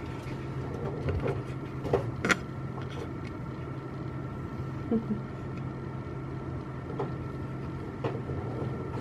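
Steady hum of neonatal incubator and breathing-support equipment, with a faint constant high tone over it. A couple of soft clicks come about two seconds in.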